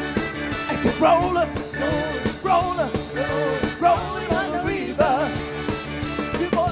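Live big band with a horn section and rhythm section playing an up-tempo rock number, with a woman singing lead over it.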